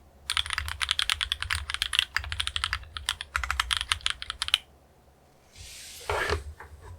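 Fast typing on a KMG B60 R1 mechanical keyboard with TTC Tiger switches, aluminium plate and OTC MODO Light keycaps: a dense run of key clacks that stops about four and a half seconds in. Near the end a brief rustle and a few soft knocks follow.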